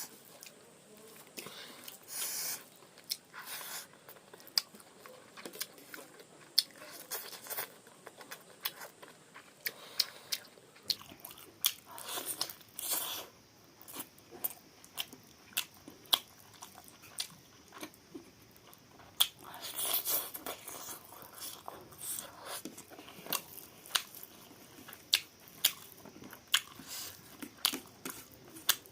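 A person eating chicken close to the microphone: chewing, with many sharp wet mouth clicks and lip smacks, and a few longer smacking stretches.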